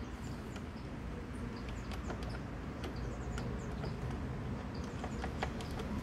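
Irregular light clicks and taps of a screwdriver working on a Suzuki DF2.5 outboard's carburetor linkage, with birds chirping in the background over a low steady rumble. The engine is not running.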